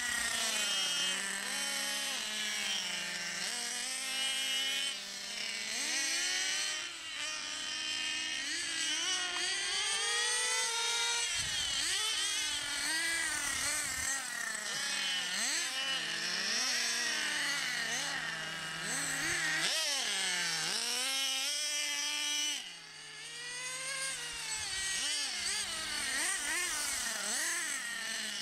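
Small engines of radio-controlled model cars running laps, revving up and down over and over, with the pitch rising and falling and at times holding a steady lower note.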